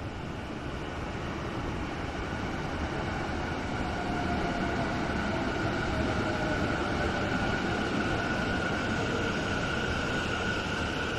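Taichung MRT Green Line metro train pulling into a station and slowing. Its running noise grows over the first few seconds and then holds, with a steady high whine and a lower tone that slides down around the middle.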